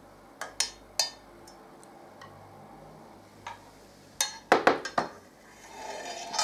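Metal spoon clinking against a stainless steel pan as sauce is spooned out, a few light clinks in the first second. About four seconds in comes a louder clatter of pan and spoon as the pan is set down on a glass induction hob, followed by a short scrape.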